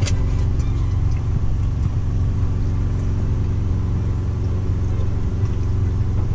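Semi truck's diesel engine running steadily, heard from inside the cab: an even low drone with steady tones. A sharp click right at the start.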